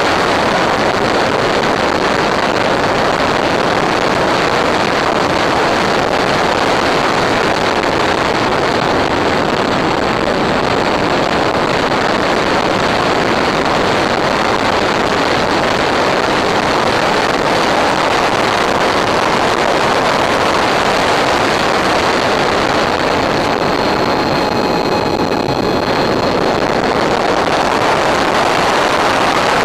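Steady, loud rushing noise throughout, with faint whining tones coming in briefly about 24 seconds in.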